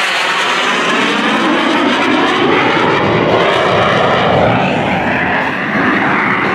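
Loud jet roar of an F/A-18E/F Super Hornet's twin GE F414 turbofans as the jet makes a low pass and flies off, with a shifting, sweeping whoosh running through the noise.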